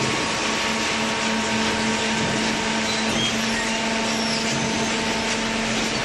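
Horizontal hydraulic baler running: a steady machine drone with a constant hum over an even rushing noise.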